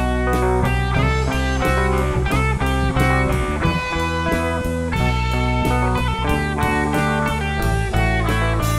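Background music: a guitar-led instrumental over drums keeping a steady beat.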